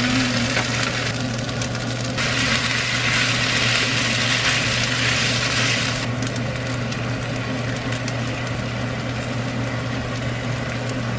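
Kimchi fried rice sizzling in a frying pan as it is stirred with a spatula, the sizzle strongest for the first half, over a steady low hum.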